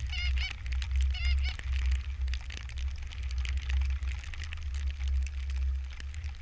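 Canada goose honks, a quick run of short rising-and-falling calls in the first second and a half, then fainter calls, over a steady low rumble of wind on the microphone.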